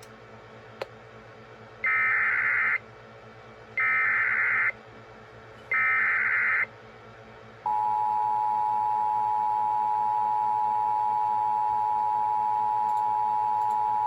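Emergency Alert System tones for a severe thunderstorm warning. First come three short bursts of SAME header data, about two seconds apart. Then, about 7.5 seconds in, the steady two-tone attention signal begins and holds, announcing that the warning message is about to be read.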